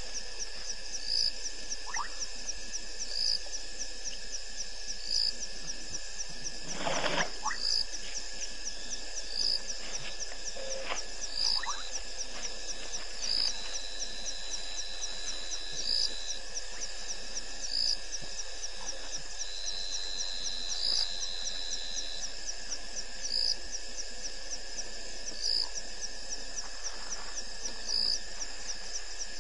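Night chorus of insects at a waterhole: a fast, steady high trill with a louder chirp repeating about once a second, and two held high tones in the middle. A short burst of noise comes about seven seconds in.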